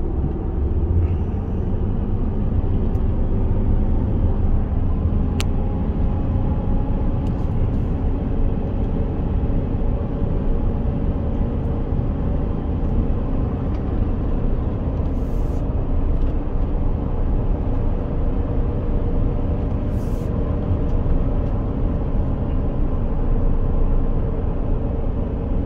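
Road noise heard from inside a moving car's cabin: a steady low rumble of engine and tyres on pavement. It has one faint click and two short hisses about fifteen and twenty seconds in.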